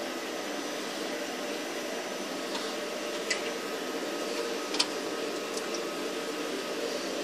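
Wire-cut EDM machine running: a steady mechanical hum with faint steady whining tones, and a few light clicks.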